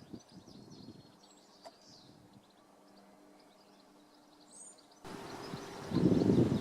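Small songbirds twittering and chirping over a faint steady hum. About five seconds in, the sound jumps abruptly to a louder, choppy low rumble that covers the birds.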